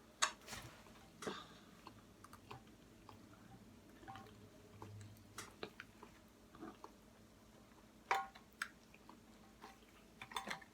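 Quiet eating sounds: a person chewing pizza, with scattered short wet mouth clicks and smacks, the sharpest just after the start and about eight seconds in.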